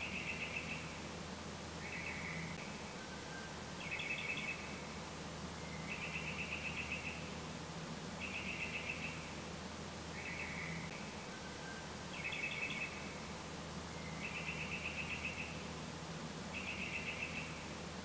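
A bird singing short, rapidly pulsed chirping phrases about every two seconds, the phrases varying a little in pitch, over a low steady hum.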